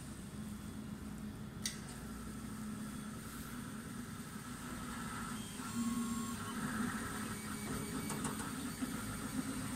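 MINGDA MD-6C 3D printer running a print: a steady hum with short, shifting whirring tones from the stepper motors as the print head moves, growing louder and busier from about five and a half seconds in. A single sharp click about one and a half seconds in.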